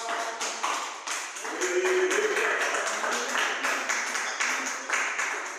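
A congregation clapping their hands in quick, steady claps, with a brief voice calling out about two seconds in.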